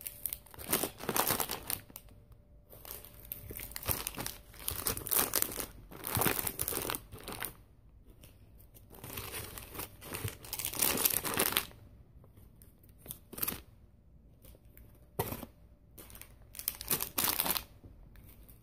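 Plastic snack and instant-noodle packets crinkling as hands move and pick them up, in irregular bursts of a second or two with short pauses between.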